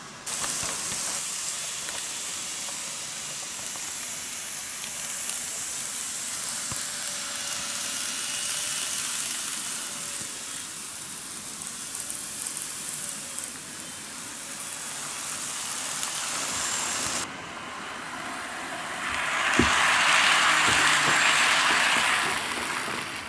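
N-gauge model electric trains running on the layout's track: a steady hiss of wheels and motors. Near the end a model 201-series train passes close by, louder for a few seconds, with a few sharp clicks as its wheels cross rail joints and points.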